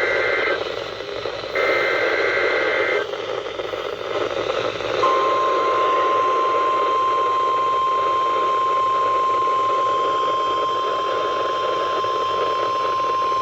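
NOAA Weather Radio weekly test tones heard through a radio receiver over steady static hiss. The end of one SAME header data burst and a second buzzy two-tone data burst about a second and a half in are followed, about 5 seconds in, by the steady 1050 Hz warning alarm tone, which holds unbroken to the end.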